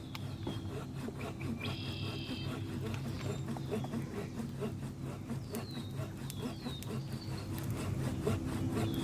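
Saw cutting through firewood in quick, even back-and-forth strokes, while a bird calls several times in short downward-slurred notes.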